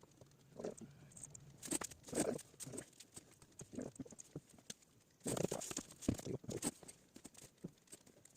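Scattered small clicks and rustles of someone working at a desk, louder in clusters about two seconds in and again around five to six seconds in.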